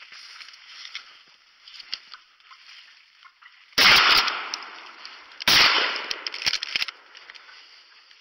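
Two shotgun shots about a second and a half apart, each a sharp blast that dies away over about a second; the gun is loaded with #5 turkey shot and ejects a spent shell between shots.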